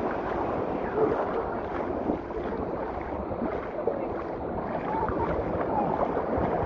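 Shallow surf washing and water sloshing around a wader's legs, with wind buffeting the microphone.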